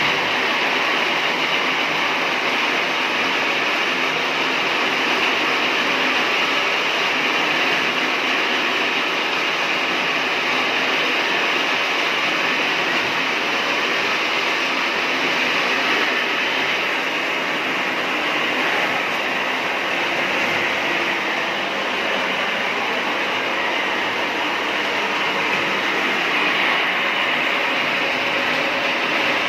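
Homemade rotisserie chicken machine running, giving a steady, unbroken mechanical noise.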